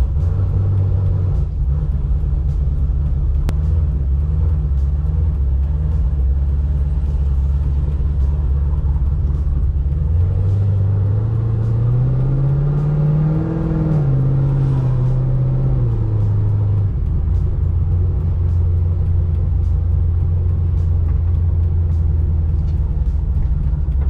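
Camaro SS V8 engine running as the car drives slowly, heard from inside the cabin as a steady low rumble. About ten seconds in the engine note rises for a few seconds, then falls back.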